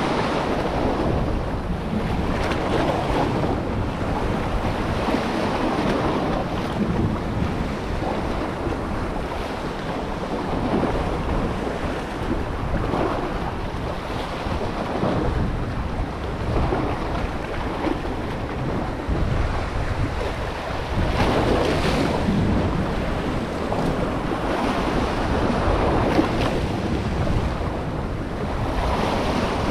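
Sea surf and wind buffeting the microphone: a steady rushing noise that swells now and then.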